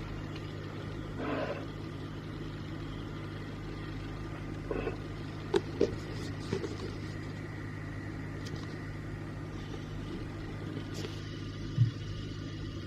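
Hot air gun running steadily, its fan blowing with a low hum, while heat is applied to soften a phone screen's adhesive. A few light clicks and taps come about halfway through and once near the end.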